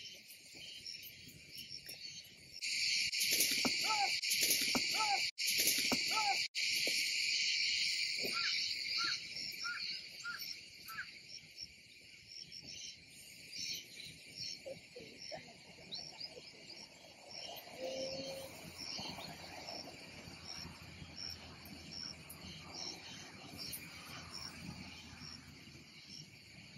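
Insects chirping steadily, with a louder high buzzing stretch for several seconds near the start that starts and stops sharply. Twigs and leaves rustle and crackle in that first part as the shiikuwasa tree is worked through, and a short low hoot-like call comes a little past halfway.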